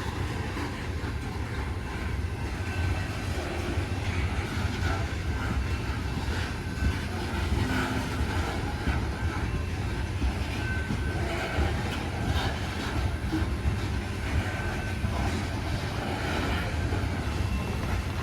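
Loaded coal hopper cars of a long freight train rolling past: a steady low rumble with wheels clicking over the rails and a few brief, faint wheel squeals.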